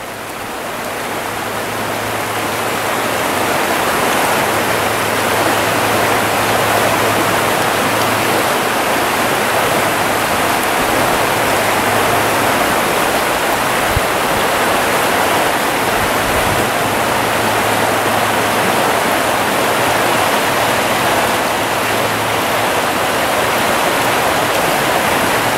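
Shallow trout stream running over riffles and around a wading angler's legs: a steady rush of water that swells over the first few seconds and then holds level.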